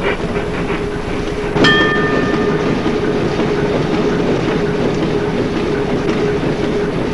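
Steam frigate's machinery running steadily aboard ship, a continuous mechanical din with a steady hum. About a second and a half in, a short ringing sound cuts in over it and fades within a second.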